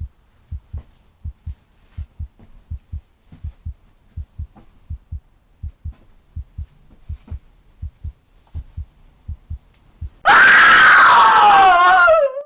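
Slow, regular heartbeat thumps in lub-dub pairs, then about ten seconds in a sudden loud scream that falls in pitch for about two seconds and cuts off abruptly.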